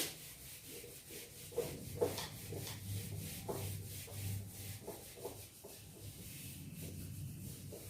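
Faint, irregular rubbing strokes of hand-writing, about two a second, as a fraction is written out.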